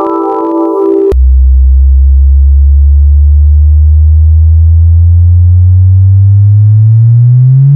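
An electronic space-sound sonification: a chord of steady tones cuts off abruptly about a second in, giving way to a loud, deep hum with many overtones that glides slowly upward in pitch, the rise steepening near the end.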